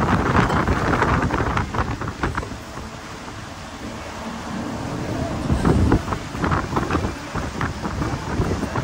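Wind buffeting the microphone on a motorboat running at speed, with water rushing past the hull beneath it; the gusts come and go, easing a little a few seconds in and picking up again near the end.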